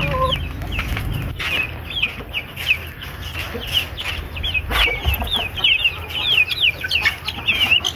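Young Aseel chicks peeping: a fast string of short, high chirps that grows busier toward the end, with a couple of brief knocks.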